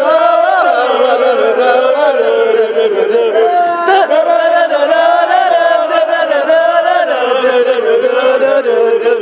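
A group of football supporters singing a loud, continuous chant together in unison, their voices held on long notes that slowly rise and fall.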